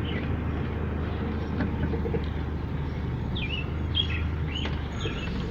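Car engine running with road noise, heard from inside the car. A few short bird chirps come in from about three to four and a half seconds in.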